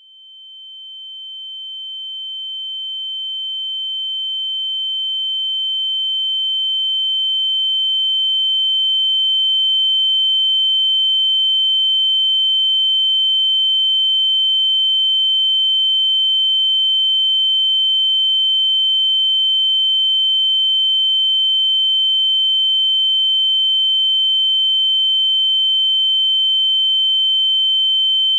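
A steady, high-pitched electronic sine tone, a pure whistle-like beep at one unchanging pitch. It starts at the window's opening, grows louder over about the first ten seconds, then holds level.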